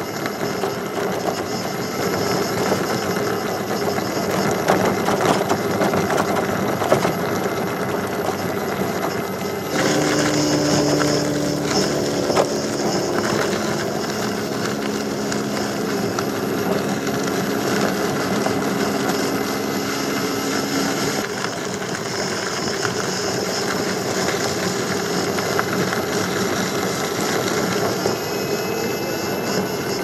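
Electric unicycles riding on a dirt trail: a steady rush of tyre and travel noise mixed with the hub motor's whine. About ten seconds in the sound changes, with steady low hums for about ten seconds, and a faint rising whine near the end.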